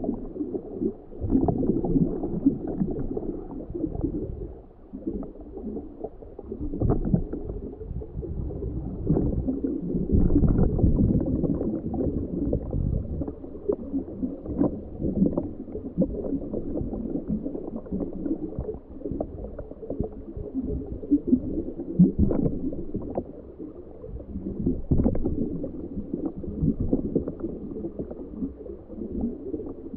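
Muffled, irregular gurgling and rumbling of water heard underwater through a homebuilt ROV's camera housing, swelling louder about ten seconds in and with a few sharper surges near the end.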